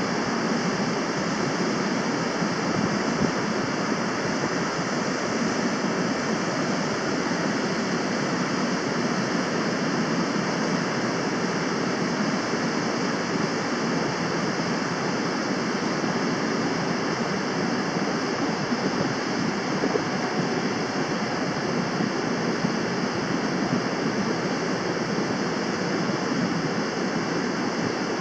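Swollen river water pouring over a weir: a steady, even rush of churning water, the river in spate after heavy rain.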